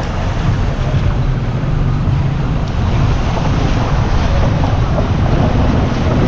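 Steady rushing noise of wind buffeting the microphone in hurricane weather, with a heavy, uneven low rumble.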